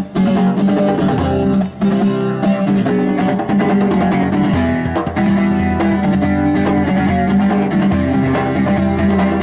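Instrumental break of a rock song: strummed guitars over a bass line and a steady drum beat.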